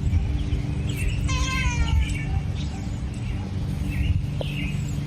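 A domestic cat meows once, about a second in: a short call falling slightly in pitch. A steady low hum runs underneath.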